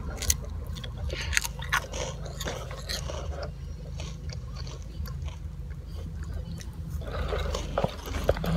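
A child biting into and chewing a crunchy snack close to the microphone, a run of crackly crunches over the first few seconds, over the steady low hum of a car's cabin.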